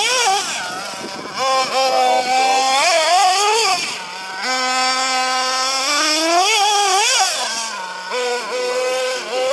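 Small nitro RC truggy engine revving up and down in surges, with a couple of steadier stretches at a lower pitch between the rises.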